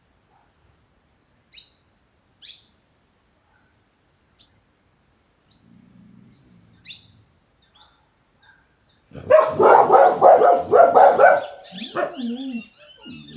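A few short, sharp, high bird chirps, spaced one to two seconds apart, typical of a sunbird. About nine seconds in, a dog breaks into a loud, rapid run of barks for a couple of seconds, far louder than the chirps.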